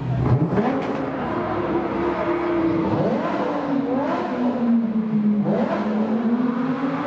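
Supercar engines revving on a street. A Dodge Viper's V10 accelerates away at the start, then another car's engine revs up several times as it approaches.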